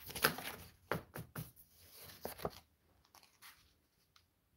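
A stack of sheets of grid paper rustling and tapping as it is handled and laid down on a cutting mat: a quick run of crisp rustles and light taps over the first two and a half seconds, then a few faint ticks.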